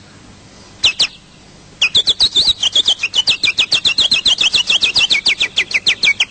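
A man imitating a bird: two single whistled chirps, then a fast trill of sharp chirps, about nine a second, that runs on to the end.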